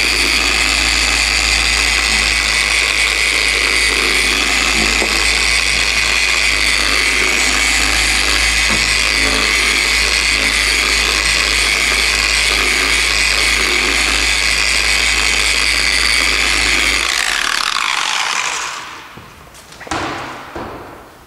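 Electric orbital car polisher running steadily with a foam pad, polishing car paint with a finishing polish, with a high steady whine. About three-quarters of the way through it is switched off and its whine falls as it spins down, followed by a couple of short knocks.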